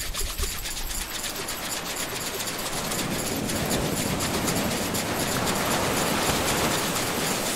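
Ocean surf washing in, swelling from about three seconds in and easing near the end, over a rapid, steady mechanical clicking.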